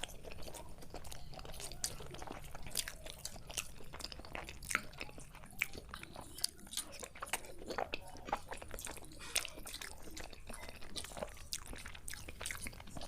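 Close-miked chewing and biting of chicken biryani, a continuous run of quick wet mouth clicks with now and then a crunch.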